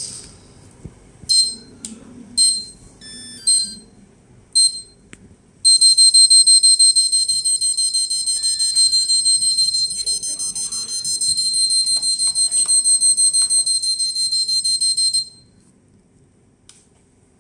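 A 40A brushless ESC sounds its start-up beeps through the windings of a small outrunner motor. A handful of short high-pitched beeps come in the first five seconds. They are followed by a fast, steady run of beeps for about nine seconds that stops abruptly.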